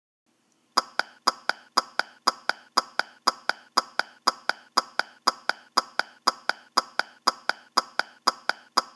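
A short, sharp, ringing click repeated evenly about four times a second, starting a little under a second in. It is an added sound effect laid over Lego stop-motion animation.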